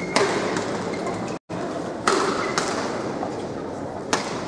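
Badminton rally: four sharp hits of rackets on a shuttlecock, roughly every one to two seconds, over the steady background noise of an indoor arena. The sound cuts out for a split second about a second and a half in.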